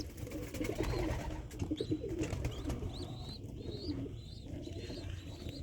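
Racing pigeons cooing in a loft, low warbling calls overlapping one another, with a run of short, high, rising peeps over the top.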